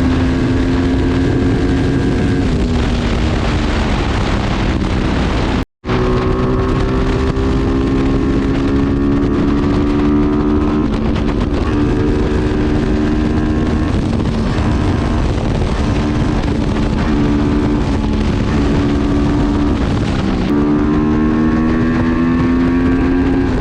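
275cc motorcycle engine running under way through a handmade exhaust. Its pitch climbs slowly and drops sharply a few times as it accelerates and changes gear, with wind on the microphone. The sound cuts out briefly about six seconds in.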